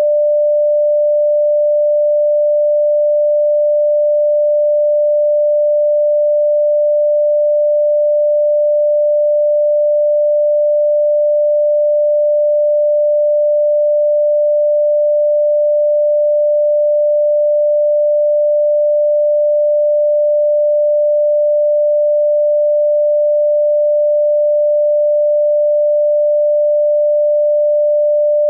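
A steady pure electronic tone, held at one pitch and one loudness without a break.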